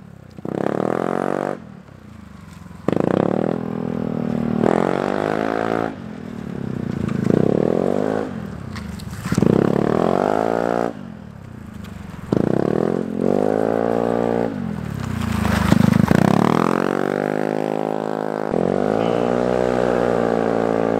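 Yamaha Zuma 125 scooter's single-cylinder four-stroke engine run hard, its note rising as it accelerates and dropping off each time the rider backs off for a turn, over and over.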